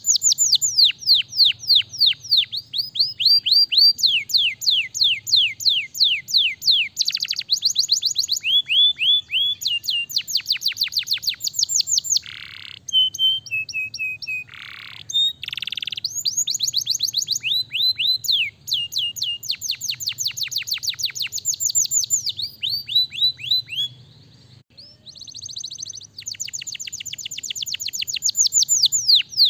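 Domestic canary singing a long run of fast trills. Each trill is a quick falling note repeated about six times a second, and the song changes from one trill to the next, with a few short breaks.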